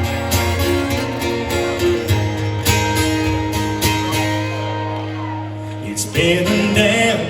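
Live country band playing a song's intro, led by guitar, with a male singer's voice coming in about six seconds in.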